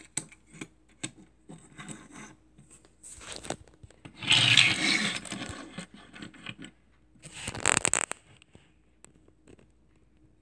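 Small die-cast toy vans handled and moved about on a tabletop: scattered light clicks and taps, with two louder scraping rubs, one about four seconds in lasting about a second and a shorter one near eight seconds.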